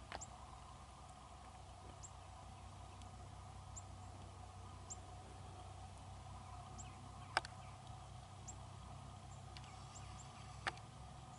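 Faint, quiet field ambience with short high-pitched bird chirps repeating about once a second, over a steady low hum, and two sharp clicks, one past the middle and one near the end.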